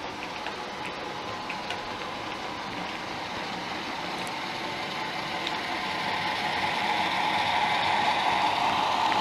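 OO gauge model train running along the track, a steady whirr of motor and wheels with a few light clicks, growing louder as it comes closer.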